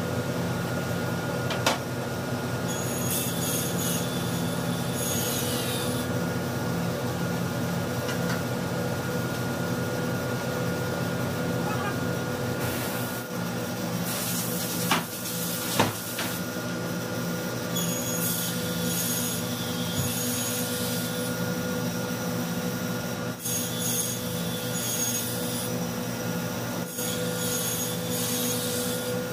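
Table saw running steadily with a constant hum. Several times, for a few seconds each, a high whine joins it as laminated board panels are cut on the saw.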